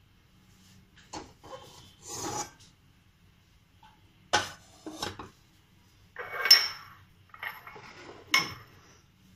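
Dishes and small glass bowls being moved and set down on a stone kitchen counter: a series of short knocks and clinks with some scraping in between, the loudest a ringing glass clink about six and a half seconds in.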